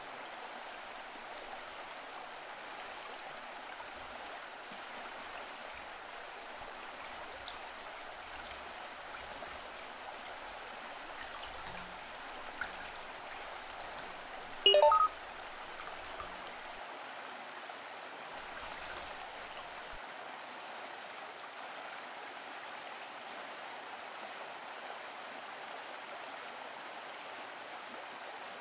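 Shallow rocky stream flowing steadily, with one short, loud pitched blip about halfway through.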